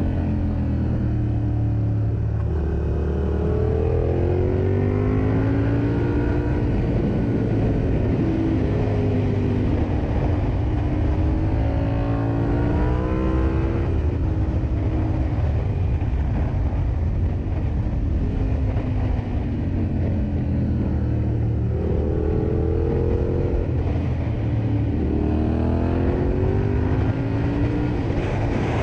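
Yamaha Ténéré 700's parallel-twin engine running under way, its revs climbing and then dropping several times, over steady wind rush.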